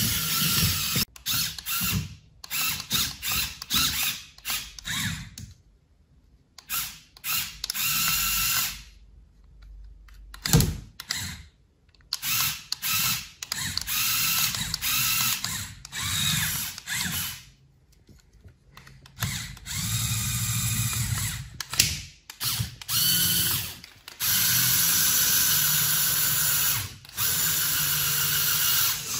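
Lego Technic electric motor and gear train whirring in repeated starts and stops, with clicking from the gears, as the car drives under load up onto the suitcase. The longest unbroken run comes near the end.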